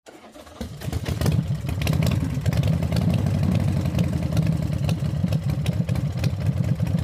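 Motorcycle engine running steadily with a fast, even exhaust beat. It fades in over the first second.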